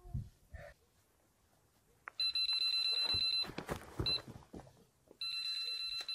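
Electronic carp bite alarm sounding a continuous high-pitched tone, signalling a bite: two long stretches of about a second each with a short blip between. Low knocks and rustling come before and between the tones.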